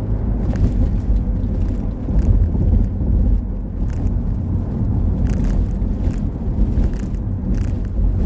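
A car driving along a road, heard from inside the cabin: a steady low rumble of engine and tyres on the road, with brief sharp noises every so often.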